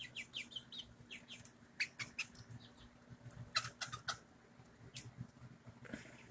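Young chickens peeping and chirping softly, many short high-pitched calls coming irregularly, over a faint low steady hum.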